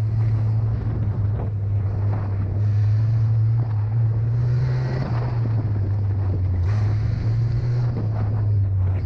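Honda-powered off-road buggy engine running steadily under way on a dirt trail, its low note shifting up and down a little, with wind buffeting the microphone.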